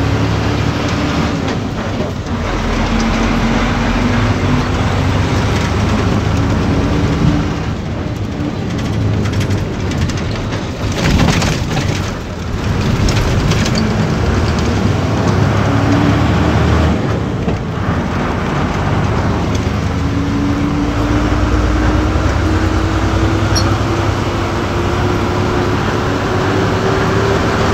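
Inside a moving bus: steady engine and road noise, with a whine that climbs slowly in pitch several times. A brief burst of rushing noise comes near the middle.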